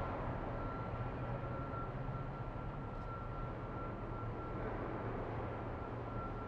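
Underground parking garage ambience: a steady low hum and even rumble with a thin, steady high tone over it. There is a faint tick about three seconds in and a slight swell of noise about five seconds in.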